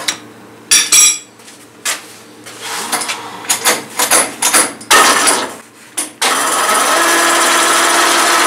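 Metal clanks and knocks as a workpiece is clamped in a lathe's three-jaw chuck with the chuck key. About six seconds in, the lathe is switched on and runs with a steady hum.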